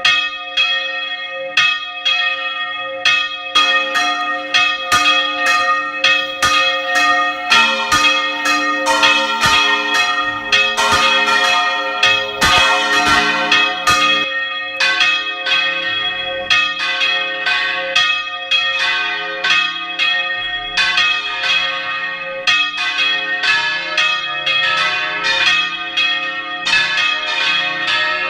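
Several church bells ringing in full-circle swing (Spanish volteo), heard from inside the bell tower: fast, overlapping strikes with long ringing tones, and more bells joining in during the first several seconds.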